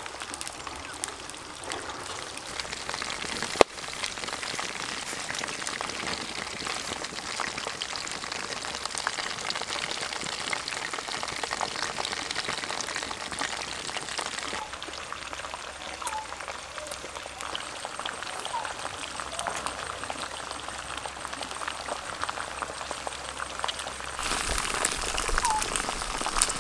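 Whole frogs deep-frying in hot oil in a wok, a steady dense sizzle full of small crackling pops. One sharp click stands out about three and a half seconds in.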